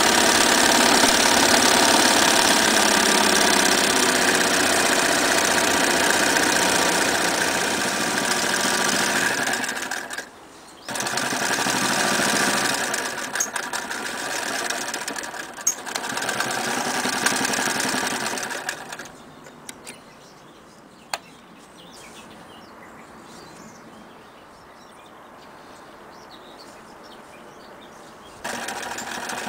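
Singer 99K electric sewing machine running at speed, stitching through fabric. It stops briefly about a third of the way in, runs again, then falls quiet for much of the second half apart from a single click, and starts up again just before the end.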